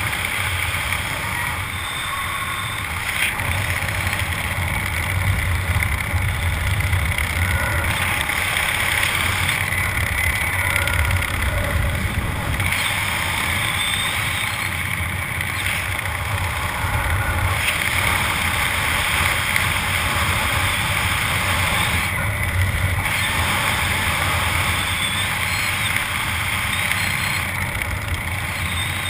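Steady wind rushing and buffeting on the microphone from the airflow of a parachute descent under an open canopy: a low rumble with a hiss over it, swelling and easing slightly but never stopping.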